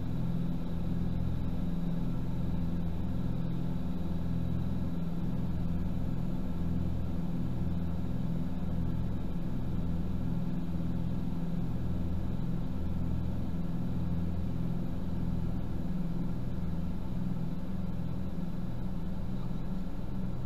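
Cessna 421 twin piston engines and propellers heard inside the cabin, a steady low drone with a slow, regular throb, during the final approach and landing.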